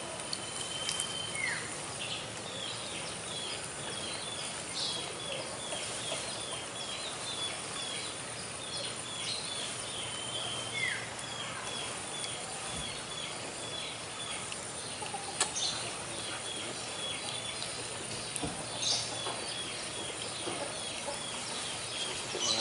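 Quiet outdoor ambience: a steady run of short high chirps, about two or three a second, with a few single falling bird calls now and then.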